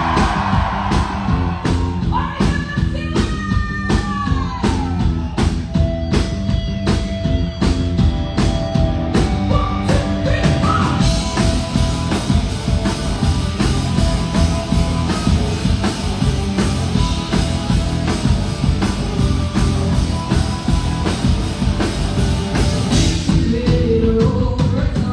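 Live rock band performing: a steady drum beat under guitars and a singing voice, the sound growing fuller and denser with cymbals about eleven seconds in.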